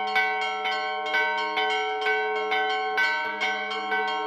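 Church bells ringing, several bells struck in a steady pattern about twice a second, their tones ringing on between strikes.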